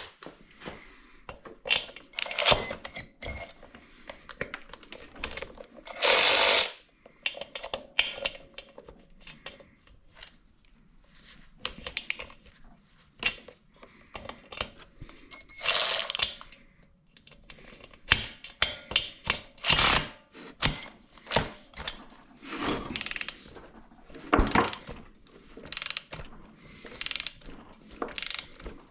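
Ratchet wrench clicking in short runs, with metal clinks and knocks, as the threaded drain insert is worked loose from a Porter Cable pancake air compressor's tank.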